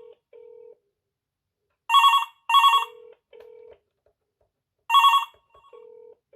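Alcatel-made Optus OneTouch 250 landline telephone's electronic ringer sounding an incoming call with a warbling trill. Two short rings come close together about two seconds in, and another follows about five seconds in.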